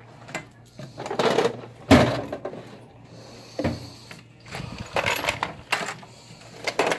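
Metal tools and parts clattering and scraping as someone rummages through a toolbox: a string of irregular clinks and knocks.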